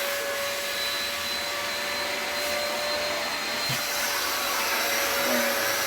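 VO.TEMM 4-in-1 vacuum cleaner running steadily with its hose and brush nozzle attached: a constant motor whine over the rushing air.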